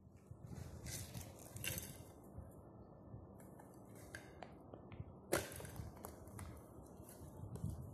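Plastic packaging of a purple sweet potato chip snack rustling and crinkling irregularly as it is handled and unwrapped, with a sharp snap about five seconds in.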